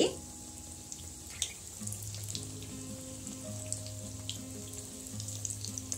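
Batter-coated potato slices deep-frying in hot oil in a kadai: a steady sizzle with scattered crackles. Soft background music with held notes comes in about two seconds in.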